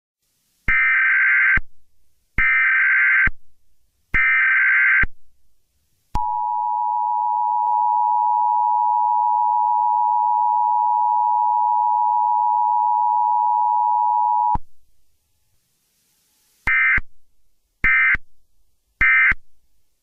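Electronic telephone-like tones: three high beeps of about a second each, then one steady lower tone held for about eight seconds, then three short high beeps.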